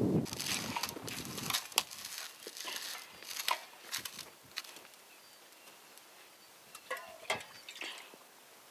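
Metal spoon stirring thick damper dough in a stainless steel mixing bowl: irregular scrapes, squelches and light clinks of spoon against bowl, busier in the first second or so.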